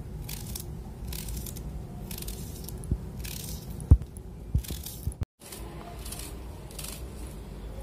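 Small knife slicing thin pieces off a red onion held in the hand, repeated crisp cutting strokes about once or twice a second. A few sharp knocks come in the middle, the loudest about four seconds in.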